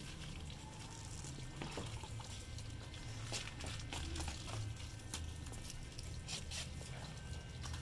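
Water running from a hose into a plastic tub, splashing and pattering onto the water, with many small scattered clicks and drips.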